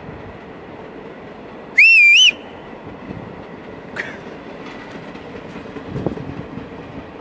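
A train running, with a steady rolling rumble. About two seconds in, a loud, short, high whistle sounds for about half a second with a wavering pitch.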